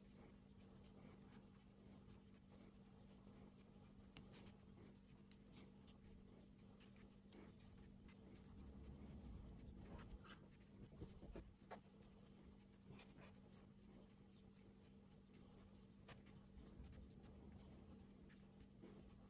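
Near silence: faint scratchy rubbing and small scattered clicks of a crochet hook pulling green yarn around a brass wire, over a low steady hum.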